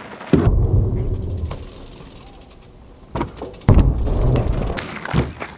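Marin Hawk Hill mountain bike riding onto a plywood kicker ramp: two loud low rumbles of tyres on wood, one near the start and a bigger one a little past halfway, each with sharp knocks and fading over about a second.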